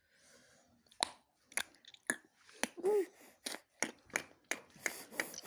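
A run of sharp clicks, about three a second, starting about a second in, with a brief high-pitched voice sound in the middle.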